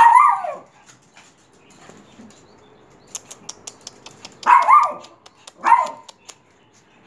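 Small white dogs barking: a sharp bark at the start, then two more about a second apart in the second half. Between them comes a run of quick light clicks.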